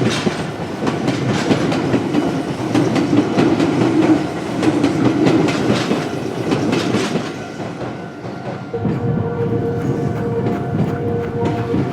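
Meitetsu electric train passing slowly over a level crossing, its wheels clicking over the rail joints again and again. About nine seconds in, the clicking thins out and a steady tone sets in.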